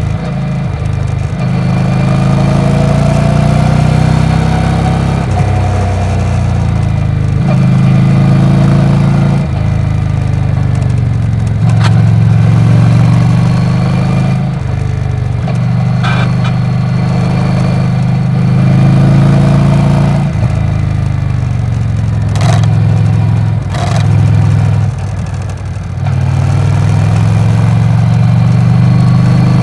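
Yamaha XV950R's air-cooled V-twin engine running, its pitch stepping up and down over and over with short dips in between. A few sharp clicks sound in the second half.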